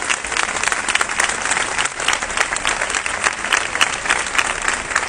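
A large crowd applauding steadily, with many hands clapping at once.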